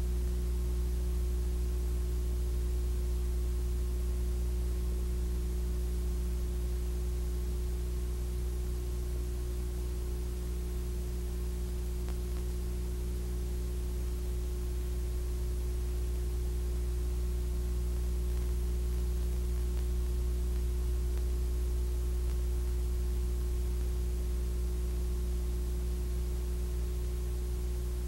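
Steady low electrical hum with an even hiss and no other sound: the blank soundtrack of a silent Super 8 film copied to VHS.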